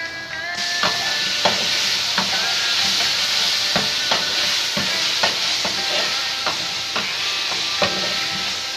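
Diced chicken sizzling in hot oil in a wok, starting about half a second in, while a wooden spatula stirs it and knocks against the pan about once or twice a second.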